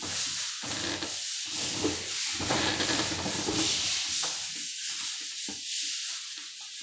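Plaster of Paris ceiling moulding being rubbed smooth by hand, a continuous run of back-and-forth scraping strokes on the set plaster, at its fullest in the middle.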